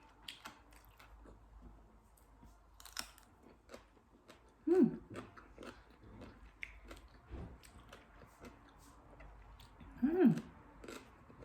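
Close-up crunching and chewing of crisp raw green mango, with scattered crisp clicks and a sharper bite about three seconds in. Two short hums of enjoyment break in, near the middle and near the end.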